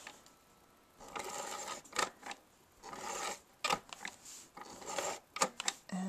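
Adhesive tape being run from a tape dispenser and pressed onto card stock: three stretches of rasping and rubbing with a few small clicks, starting about a second in.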